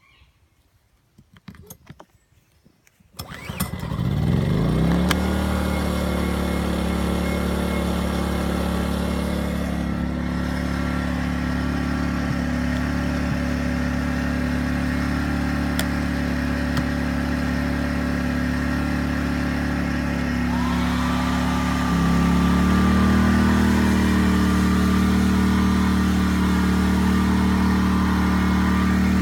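Loncin LC2000i inverter generator's small four-stroke engine: a few clicks, then it starts about three seconds in, rises to speed and runs steadily. About twenty seconds in a steady whine joins, and soon after the engine speed steps up and holds higher.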